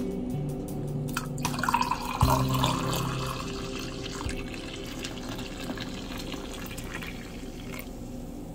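Coffee pouring into a mug of milk: a splashing pour that builds about two seconds in and then tapers off as the mug fills.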